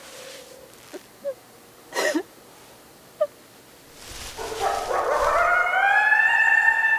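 A few short yelps and breathy cries, then about four seconds in a coyote-like howl rises and is held as one long steady note.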